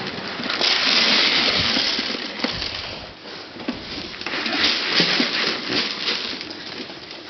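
Piglets feeding and moving about: a dense rustling, clicking noise that swells and fades, loudest about a second in and again around five seconds in.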